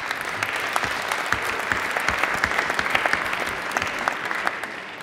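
Audience applauding: many hands clapping together, fading away near the end.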